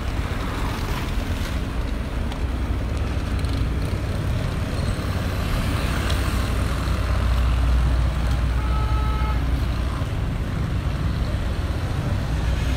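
Steady low rumble of a vehicle driving along a street. A brief two-tone horn toot comes about nine seconds in.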